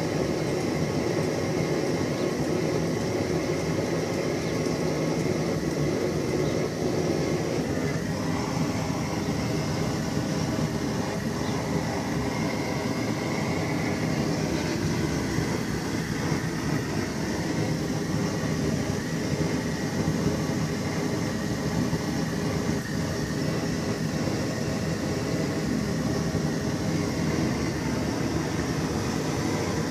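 MTZ-82 tractor engine running steadily while warming up after a cold start in −7 °C frost. The pattern of its tone shifts about eight seconds in, then holds steady.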